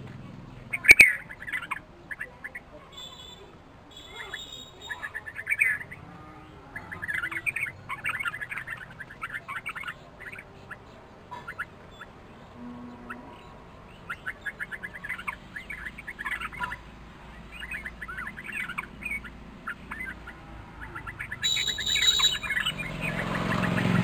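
Red-vented bulbuls chirping in short repeated bursts, with one sharp knock about a second in. A low rumble rises near the end.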